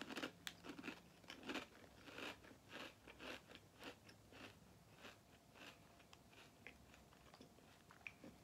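Mouth chewing Popchips, thin popped (not fried) potato chips: quiet crunching, about two crunches a second, crunchy but airy, dying away over the last couple of seconds as the mouthful is finished.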